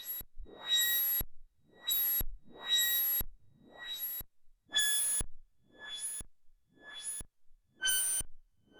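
Behringer Neutron synthesizer playing a repeating noise pattern: rising swells about once a second, each cutting off suddenly. Whistling resonant tones ring on top of each swell and drift lower in pitch as the pattern repeats.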